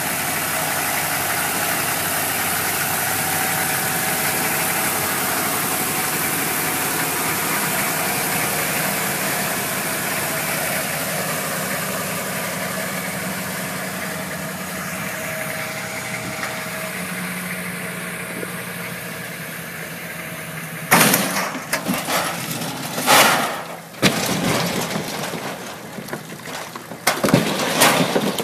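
Pickup truck engine running steadily, then a series of loud, sudden noises over the last seven seconds or so.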